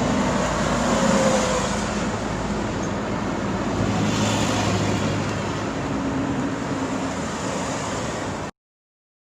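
Steady road traffic noise, with vehicles passing, that cuts off abruptly near the end.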